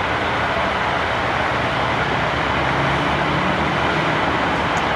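Steady freeway traffic noise, vehicles passing in a continuous wash of tyre and engine sound, with a low engine hum underneath.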